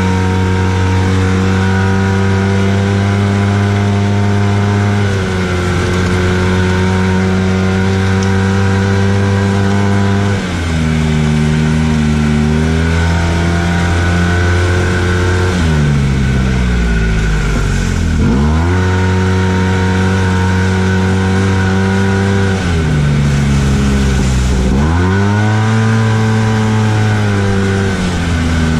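Arctic Cat Wildcat Trail 700 side-by-side's engine, heard from the cockpit while being driven over sand, running at high revs that repeatedly drop and climb again as the throttle is lifted and reapplied. The revs fall deeply about two-thirds through and again near the end before rising back.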